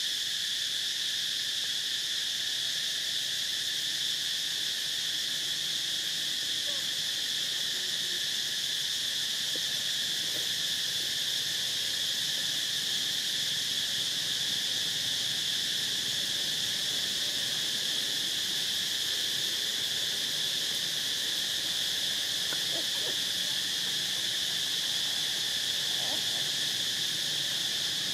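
Steady insect chorus: a continuous, unchanging high-pitched drone.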